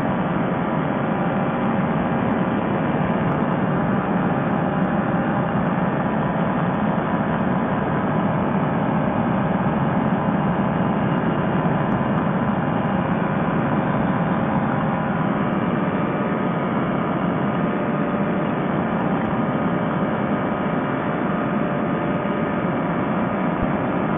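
Fresh Breeze Monster paramotor engine and propeller running steadily in flight, a continuous drone with no change in pitch.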